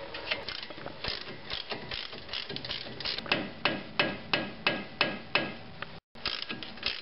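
Hand socket ratchet clicking in repeated strokes as it runs the new self-locking nut onto the tie rod end stud. The clicks are scattered at first, then settle into a steady run of about three clicks a second.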